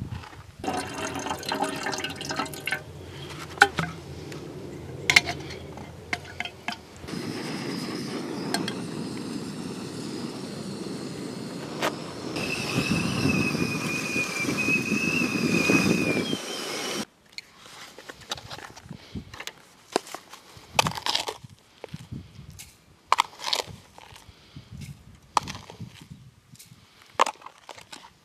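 Outdoor camping kettle heating on a gas stove with a steady boiling noise, and about halfway through a thin, high, wavering whistle from its spout for a few seconds before the sound cuts off suddenly. After that, scattered light clicks and taps.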